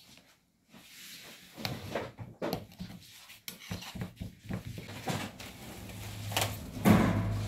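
Handling noise as pastry dough is pressed into a metal baking tray: scattered light knocks and rubs of hands and a plastic scraper against the tray and its rim, with a louder knock near the end. A steady low hum comes in about five seconds in.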